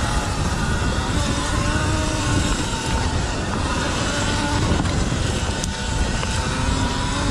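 Sur-Ron L1E electric dirt bike riding along a trail: the electric motor and drive whine, rising and falling in pitch with the throttle, over a heavy rumble of wind and tyres on dirt.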